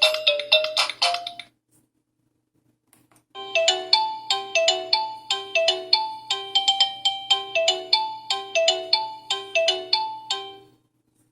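Default ringtones of a Sigma X-Style S3500 sKai mobile phone: one melody ends about a second and a half in, and after a short pause another bright melody of quick, separate notes plays for about seven seconds and stops before the end.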